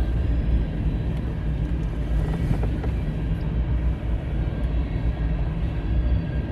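Freight train passing close by: a steady, loud low rumble with faint, steady high tones above it.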